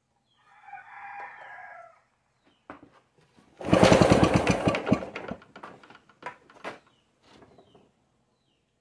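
The two-stroke engine of a 1951 Homelite model DC generator is pull-started with the choke backed off: it catches and fires in a rapid sputtering burst for about a second and a half, then dies out with a few scattered pops. Before the pull, a rooster crows once in the background.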